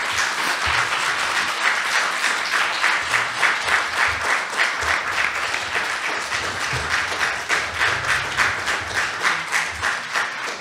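Audience applauding, a dense patter of many hands clapping that starts to die down at the very end.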